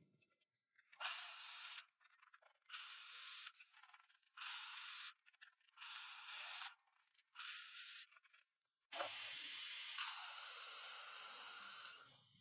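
A series of short hissing bursts, five of them about a second and a half apart, followed near the end by a longer hiss of about two seconds.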